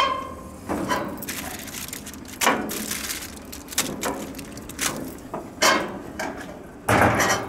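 Aluminium foil packets crinkling and clacking as they are set down on a gas grill's metal grates, with several sharp knocks. About seven seconds in comes a heavier knock, as the grill's stainless steel lid is pulled down shut.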